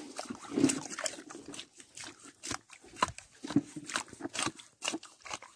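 Wet mangrove mud crackling and squelching: irregular sharp clicks and soft wet pops, several a second, with a couple of duller thuds.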